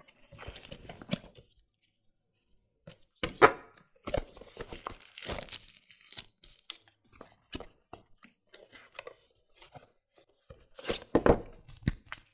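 Cardboard packaging and a paper card being handled during unboxing: irregular rustling, scraping and small knocks, with louder bursts about three seconds in, around five seconds in, and again near the end.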